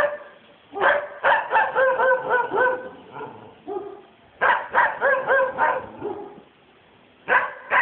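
Kennelled dogs barking in three bursts of quick, high-pitched barks: about a second in, in the middle, and again near the end.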